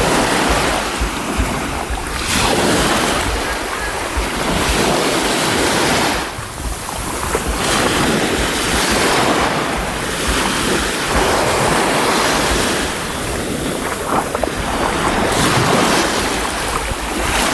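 Baltic Sea surf washing onto the shore, the rush of the waves swelling and easing every few seconds, with wind rumbling on the microphone.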